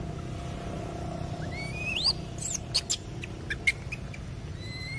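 Macaque squeals: a high squeal rising in pitch about two seconds in, then a quick run of short, sharp high squeaks, and a brief high, even-pitched call near the end, over a steady low hum.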